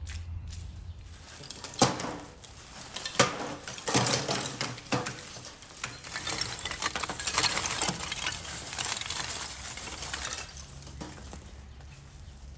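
Lump charcoal poured from a sack into a wire-mesh basket, clattering and clinking: a few sharp knocks first, then a dense run of clatter for about four seconds that thins out near the end.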